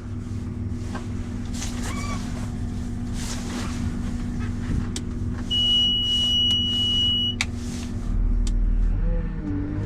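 Cat 930 wheel loader's diesel engine running steadily under way, heard from inside the cab. About halfway through, a steady high-pitched beep sounds for about two seconds.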